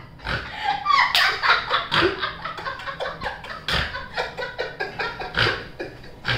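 Several people laughing hard together, with a few sharp hand claps among the laughter.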